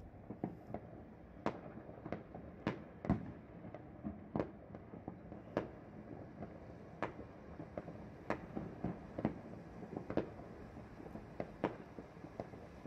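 New Year fireworks and firecrackers going off across the city: many scattered bangs and cracks at irregular intervals, a few noticeably louder than the rest.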